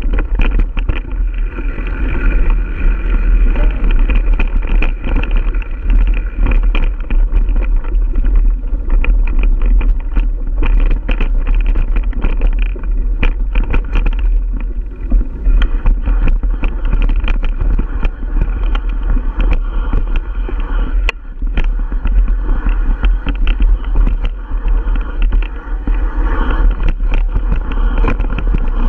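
Giant Stance 1 mountain bike riding over a rocky dirt trail, heard from a camera mounted on the bike: a continuous loud rumble of tyres on the ground and wind on the microphone, broken by frequent short clicks and knocks as the bike rattles over rocks and roots.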